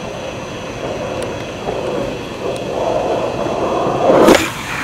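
Skateboard wheels rolling with a rumble that grows louder as the board approaches, then a single loud sharp knock of the board about four seconds in.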